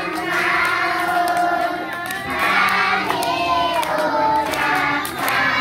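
A group of children singing together, with hands clapping along.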